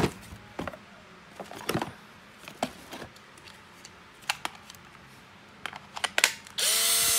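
Clicks and knocks of a used cordless drill being handled, then near the end the drill's motor starts up and runs with a steady whine on a test run.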